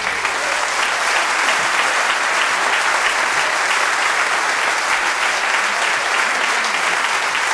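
Audience applauding steadily as a live jazz performance ends.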